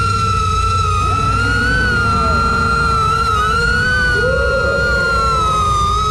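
FPV quadcopter's motors and propellers whining in flight: a strong steady high whine that wavers slightly in pitch as the throttle changes, several motor tones drifting apart and back together, over a steady low noise.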